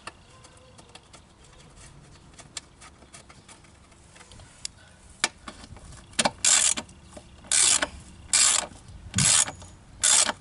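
Ratchet wrench being worked on a bolt in a lawn mower deck: light clicks at first, then five short rasping bursts of ratchet clicking in quick succession near the end.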